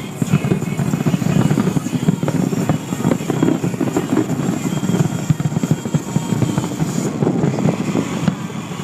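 Fireworks barrage: a loud, continuous rumble of many overlapping bursts and crackles.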